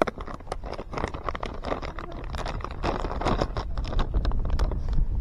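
Plastic packet of Googan Baits Rattling Ned soft-plastic lures being handled and opened: a run of crinkles, clicks and scrapes, over a low wind rumble on the microphone that grows louder.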